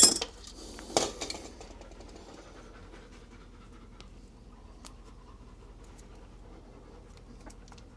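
Dog panting steadily in the background, with a couple of sharp clicks in about the first second.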